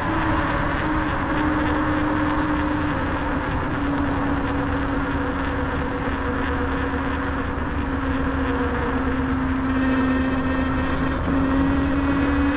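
Bafang G62 hub motor, driven by a Flipsky VESC controller, whining steadily as the e-bike rides along. Its pitch sinks slowly and then climbs again toward the end as speed changes. A steady rush of wind and road noise runs underneath.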